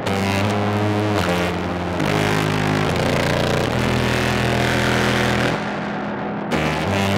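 Contrabass clarinet amplified by an internal microphone and run through a fuzz pedal and pad reverb, playing a line of held low notes, each about one to two seconds long, with a heavily distorted, buzzy tone and a reverb wash behind it.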